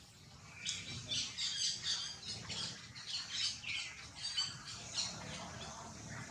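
A rapid series of short, high-pitched chirping calls, some falling in pitch, starting about a second in and thinning out near the end.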